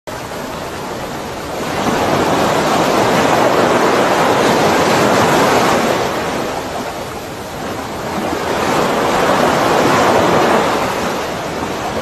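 Rushing of rough sea and wind, with waves breaking around a boat: a steady noise that swells up twice, for a few seconds from about two seconds in and again around ten seconds.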